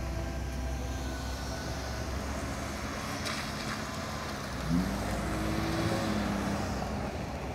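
A steady engine drone with a noisy hiss over it. About halfway through, a tone rises and then holds, a moment after a few sharp clicks.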